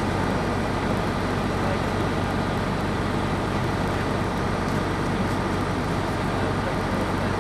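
A bus engine running steadily, a constant low hum under an even rush of noise.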